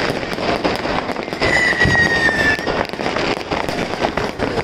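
Fireworks and firecrackers going off in dense, rapid crackling bangs. In the middle, a high whistle drops slightly in pitch over about a second.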